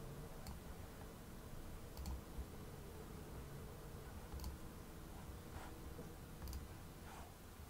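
Computer mouse button clicks, four sharp clicks a couple of seconds apart, over a faint steady electrical hum.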